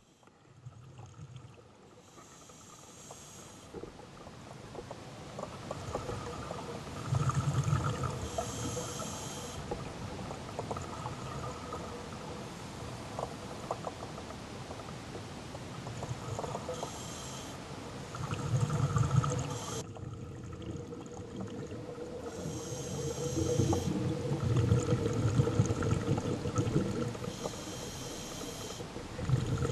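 Scuba diver breathing through a regulator underwater: five hissing inhales about every six seconds, each followed by a low rumble of exhaled bubbles, over a faint steady hum.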